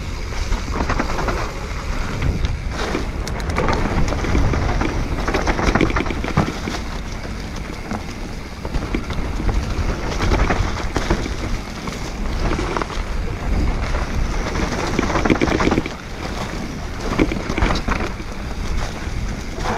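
Mountain bike descending a dirt trail: wind buffeting the microphone over the rumble of tyres on rough ground, with frequent clatters and knocks from the bike.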